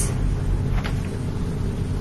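Steady low hum, with a single faint click a little under a second in.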